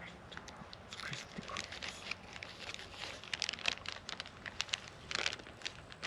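Plastic lure packaging crinkling and tearing as it is worked open by hand: a string of irregular crackles and crinkles.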